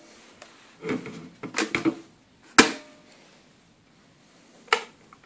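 Clicks and knocks from handling an electric kettle and its lid: a quick cluster of knocks about a second in, then a sharp click in the middle and another near the end.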